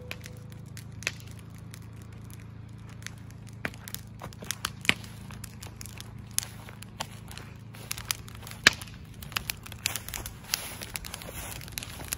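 Wood campfire crackling, with sharp pops at irregular intervals that come more often after the first few seconds, over a faint, steady low hum.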